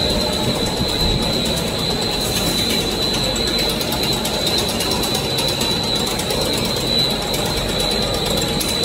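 High-speed straight-line wire drawing machine running, its capstan drums turning as wire is pulled through the dies: a steady mechanical clatter with a high whine held throughout. A fast, fine ticking joins it about two seconds in.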